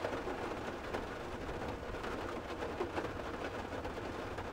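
Light rain pattering steadily on the roof of a Ford F-150 pickup, heard from inside the cab.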